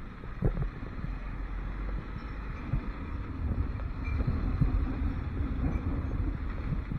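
Motorcycle engine running at riding speed, with wind buffeting the camera's microphone; the rumble grows louder about three seconds in.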